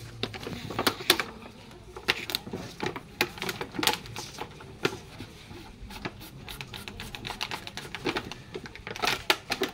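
Irregular sharp clicks and crackles of a clear plastic container being gripped and handled, several a second, busiest near the end.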